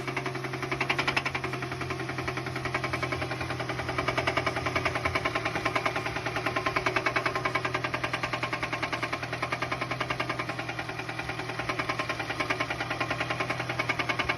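Car engine running with a rapid, even knocking from inside the engine, most likely a spun bearing.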